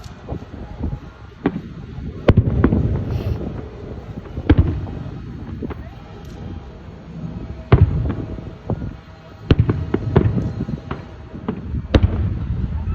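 Aerial fireworks bursting: a string of sharp booms every second or two, several close together, each trailing off in a low rumble.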